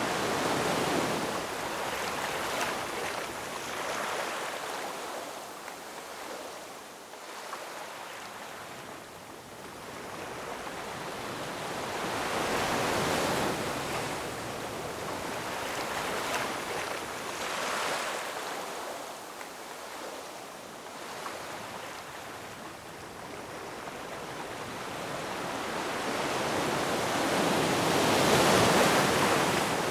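Ocean waves washing over and breaking on rocks, the surf swelling and easing several times, loudest near the end.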